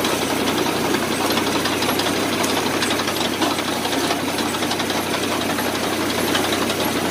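Reaper binder cutting and binding wheat: its small engine runs steadily under load, with a rapid mechanical clatter from the cutting and binding mechanism.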